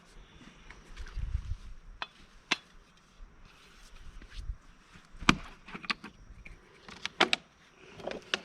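Camp cooking gear being handled: a scattering of short sharp knocks and clinks, the loudest about five seconds in and a quick pair about seven seconds in, with some low handling rumble early on.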